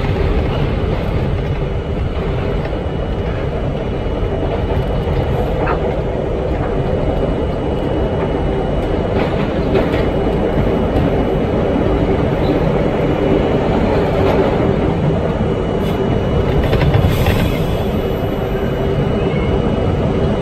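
R42 subway car running through a tunnel, heard from inside the front car: a steady loud rumble of steel wheels on rail and traction motors, with a few sharp clicks along the way.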